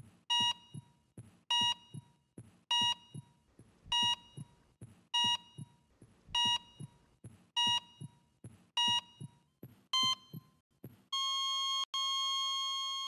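Heart-monitor sound effect: a steady beep about every 1.2 seconds, nine in all, with soft low heartbeat thumps between them. Near the end it turns into one long unbroken flatline tone, the sign of the heart stopping.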